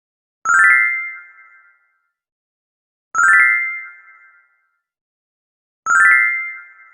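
Magical twinkle-sparkle sound effect played three times, about every two and a half seconds: each a quick rising run of bright chimes that settles into a ringing chord and fades out over about a second.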